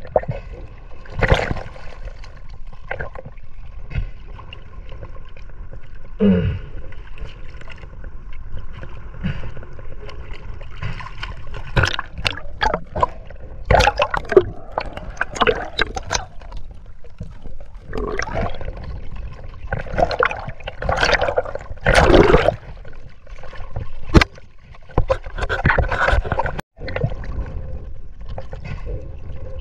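Sea water sloshing and gurgling around an action camera bobbing at the waterline, with irregular louder splashes from a swimmer. The loudest splashes come about two thirds of the way through.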